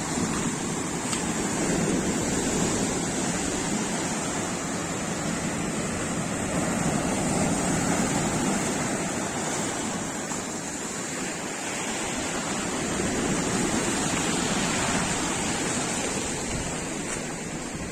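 Black Sea surf washing onto the shore, a continuous rush of waves that swells and eases every five or six seconds.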